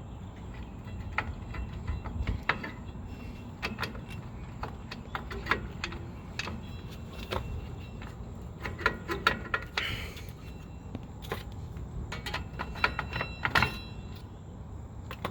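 Irregular metallic clicks, taps and clinks of hand tools and brake parts being handled while a drum-brake wheel cylinder is worked loose, over a steady low rumble.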